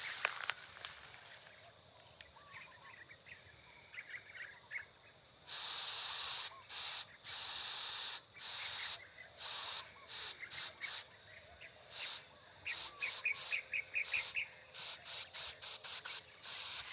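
Insects trill steadily in the rice with a few short chirps. From about five seconds in, a hand-pump pressure sprayer hisses in repeated bursts of mist.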